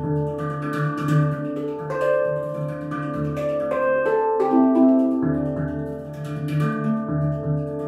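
Handpan in a Phrygian hexatonic scale played with the fingers: notes struck and left ringing over a deep low note sounded again and again, with a quicker run of higher notes about halfway through.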